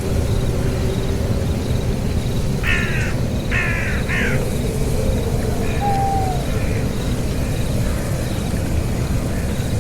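Steady low rumbling noise, with three harsh bird calls in quick succession about three seconds in, followed by fainter calls and a short whistled note around six seconds.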